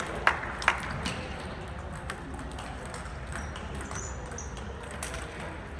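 Table tennis ball clicking sharply a few times in the first second, then faint scattered ball clicks from other tables over the steady hum of a large hall, with a brief high squeak about four seconds in.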